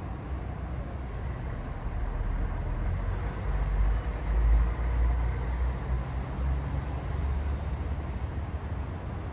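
Steady rain hiss with a road vehicle passing, its low rumble swelling to a peak about halfway through and then fading.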